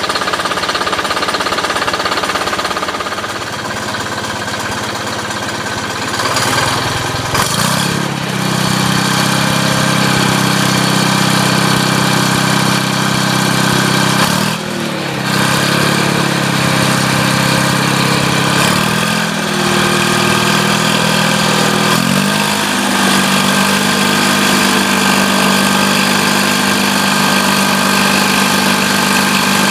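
GM 2-71 Detroit Diesel, a two-cylinder two-stroke diesel fitted to a 1949 Farmall M, running with a steady clatter. Its speed rises about a quarter of the way in, then dips briefly and recovers a few times.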